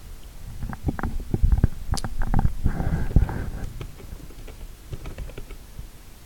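Computer keyboard being typed on: an irregular run of short key clicks and dull thumps as new lines are entered and a few letters are typed, with a brief rustle about three seconds in.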